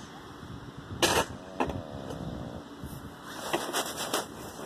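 A handheld phone's microphone being bumped and rubbed while walking. There is a loud scuff about a second in, a smaller one just after, and a run of small scrapes and clicks near the end.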